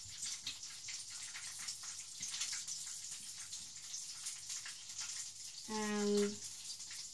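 Breaded chicken drumsticks frying in sunflower oil in a pan: a steady sizzling hiss full of small crackles. A brief voiced hum cuts in about six seconds in.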